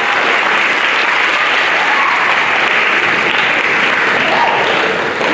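Audience applauding, a steady dense clapping from a hall full of people.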